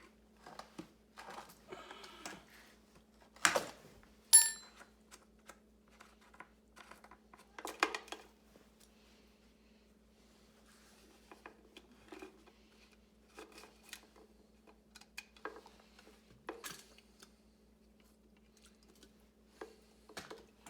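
Scattered clicks, knocks and handling noises from work on a Dolmar PS 7300 chainsaw, as its fuel is checked, with one sharp ringing metallic clink about four seconds in. A steady low hum runs underneath.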